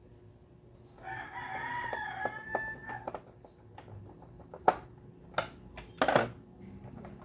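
A rooster crows once, about a second in, for roughly two seconds, ending on a held note. Then come a few sharp clicks and knocks.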